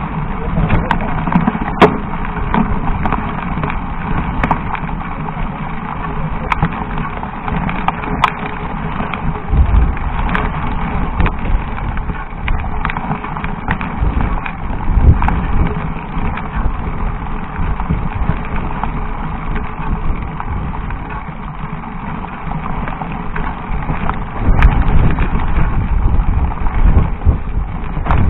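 Mountain bike climbing a rocky dirt trail: tyres crunching over loose stones and the bike rattling, with a steady patter of small knocks and a few heavier low thumps.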